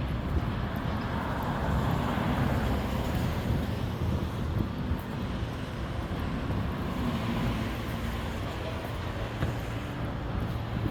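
City road traffic: a steady rumble of passing vehicles, swelling about two seconds in as one goes by.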